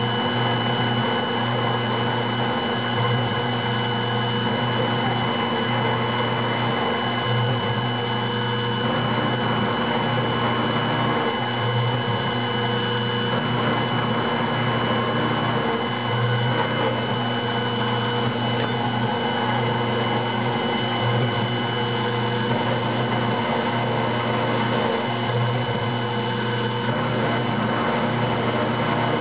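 Taig CNC mill running and cutting Delrin: a steady machine whine made of several constant tones over a lower hum that wavers slightly as the cutter moves through the plastic.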